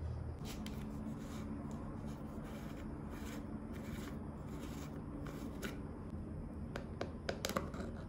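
Hands twisting a plastic screw-top lid off a small jar in a run of short turns, each a brief scraping rub, then a few sharp clicks near the end as the lid comes free.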